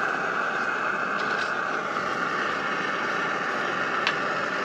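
Spatula stirring and scraping rice in a frying pan, a few light scrapes and a sharper tap near the end, over a steady rushing hiss.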